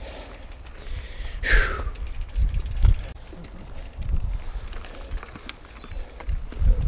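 Mountain bike rolling over a rough dirt trail: tyre and frame rumble with thumps over bumps, and the rear hub's freewheel ratchet ticking quickly in stretches while coasting. A short falling squeal about a second and a half in.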